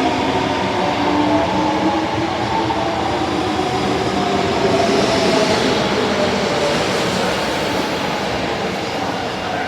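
Osaka Metro 22 series subway train running along the track: steady wheel and running noise with a faint motor whine that drifts slowly in pitch.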